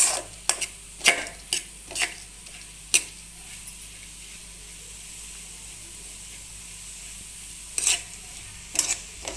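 Metal spatula scraping and stirring split moong dal around a dry metal pan, about two strokes a second at first and again near the end. In between, a steady soft sizzling hiss as the freshly washed dal dry-roasts on high heat and its moisture cooks off.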